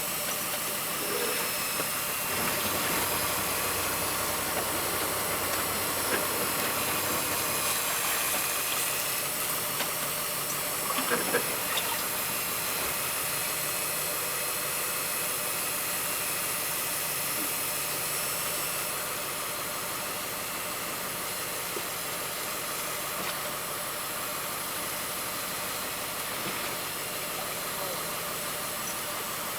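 Fishing boat's engine running steadily under a constant hiss, with a few brief knocks about eleven seconds in.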